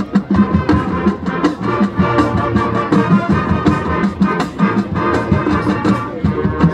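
High school marching band playing: sustained wind and brass chords over steady drum hits.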